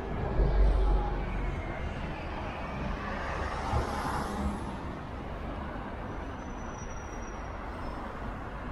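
Road traffic on a city street with a motor vehicle going by, loudest as a low rumble about half a second in.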